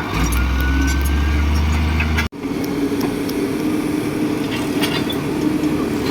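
Heavy earthmoving machine's diesel engine running steadily, with a few faint metallic clinks. About two seconds in the sound cuts off abruptly and gives way to another steady engine drone with a higher, steady hum.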